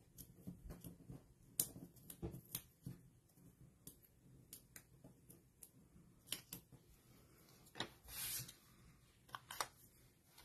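Faint handling of card stock: scattered light taps and clicks as a small paper tag and its foam adhesive dimensionals are pressed and positioned on a cutting mat, with a brief paper rustle about eight seconds in.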